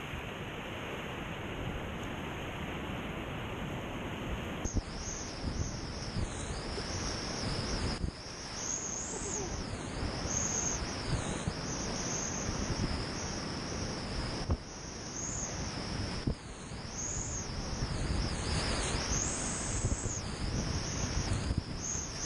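Flood-stage whitewater rushing and churning around a kayak, with wind buffeting the action-camera microphone. The character of the noise changes abruptly about five seconds in, and a wavering high hiss rides on top after that.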